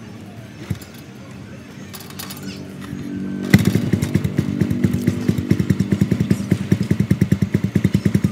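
1998 Royal Enfield Bullet's single-cylinder four-stroke engine running through its freshly welded exhaust silencer. It runs quietly at first, then about three and a half seconds in the exhaust beat jumps up into a loud, even, rapid thumping.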